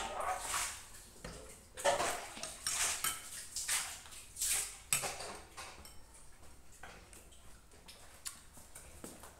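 Eating sounds at a table: a spoon clinking and scraping against glass bowls and a plate, with chewing and lip-smacking, a quick run of short noisy bursts over the first five seconds that turns quieter after.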